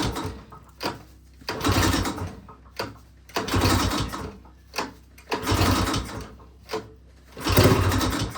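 Small gravity-fed engine being pull-started on choke: five pulls of the recoil starter about two seconds apart, each turning the engine over briefly without it running on its own.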